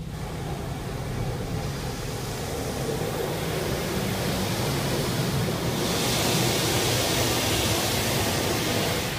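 High-pressure water jets of a touchless car wash spraying the car, heard from inside the cabin: a steady rush of water that grows louder and turns to a hard hiss about six seconds in, as the spray covers the windshield. A low steady hum runs underneath.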